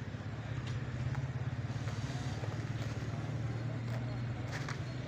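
A steady low motor hum with a rapid flutter, like an engine running, with a few faint clicks and a brief scrape near the end.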